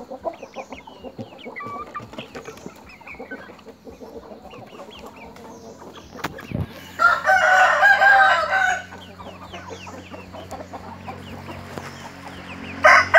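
Thai gamecock roosters crowing: one long crow about seven seconds in and another starting near the end, over scattered clucking and short calls from other chickens. A single sharp knock just before the first crow.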